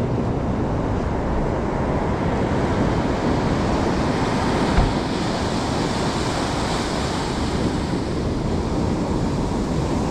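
Ocean surf breaking on the beach: a steady rush of noise, with wind on the microphone and a brief thump about five seconds in.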